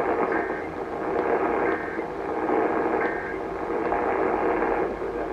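AM broadcast radio relaying the Emergency Alert System end-of-message signal: three short buzzy data bursts about a second and a half apart, over a steady band of static hiss. The bursts mark the end of the alert.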